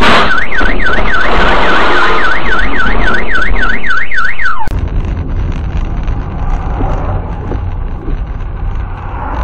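A loud crash as a dump truck hits the car, followed at once by a car alarm wailing, its pitch sweeping up and down about three times a second. The alarm cuts off suddenly a little over four seconds in, giving way to steady road and engine rumble heard from inside a moving car.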